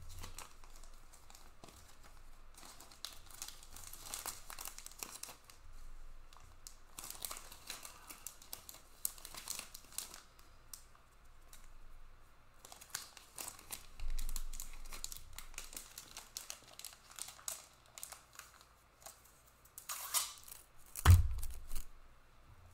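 Trading cards being handled in clear plastic sleeves and rigid top loaders: repeated crinkling, rustling and sliding of plastic and card. Near the end, a single loud thump as something is set down on the table.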